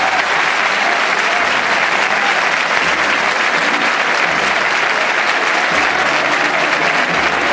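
Large crowd applauding steadily, greeting a Holy Week procession float as its bearers carry it out through a church doorway.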